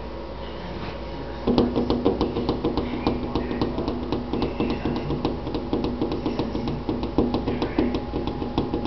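Porcupine gnawing on wood: a rapid run of sharp clicks and knocks, several a second, starting about a second and a half in and going on nearly to the end.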